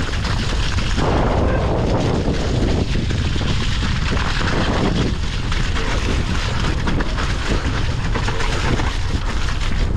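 Mountain bike tyres rolling through wet mud and over rocks on a fast descent, with the bike rattling over the bumps, under a steady rumble of wind on the microphone.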